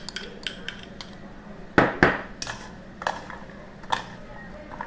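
Metal spoon clinking and scraping against a stainless steel mixing bowl as a vegetable salad is tossed, with two loud clanks close together about two seconds in and lighter clinks around them.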